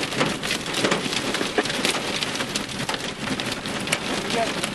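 Heavy storm rain beating on an SUV's windshield and roof, heard from inside the cabin, with many sharp, irregular individual hits.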